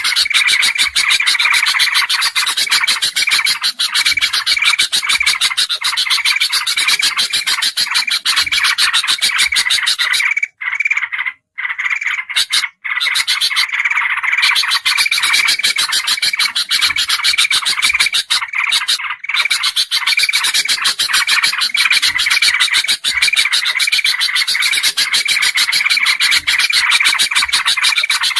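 Bird-lure recording of bulbuls calling in a dense, noisy chorus: rapid chattering with a chirp repeating about twice a second. It breaks off for a few short moments in the middle.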